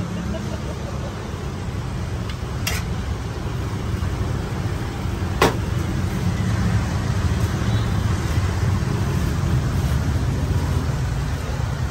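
Steady low rumble of passing street traffic, with two sharp clicks, the louder one about five and a half seconds in.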